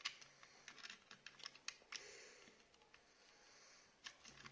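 Faint clicks and taps of the small plastic parts of a Beyblade launcher being handled and fitted together, with a soft hiss lasting about two seconds in the middle.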